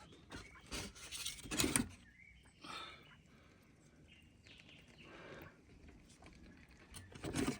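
A few short knocks and clatters from the coop's door being handled, the loudest about two seconds in and another near the end.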